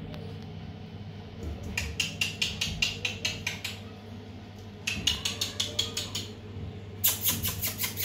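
Rose-ringed parakeet tapping its beak rapidly against a mirror, in three quick runs of sharp taps at about six a second.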